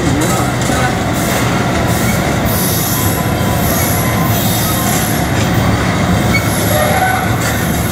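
Herzog ballast hopper cars rolling past on the rails, a steady loud rumble and clatter of wheels. A thin, high squeal from the wheels rises above it twice.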